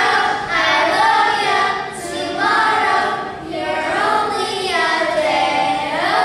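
A group of children singing together in chorus, in long held phrases.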